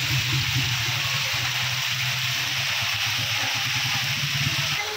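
Small motorcycle engine running at low speed as the bike rides away, under the steady hiss of heavy rain. The engine sound stops abruptly near the end.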